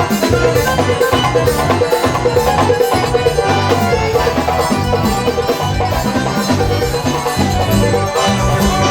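Live forró band playing an instrumental passage: accordion over drums and bass keeping a steady, regular beat.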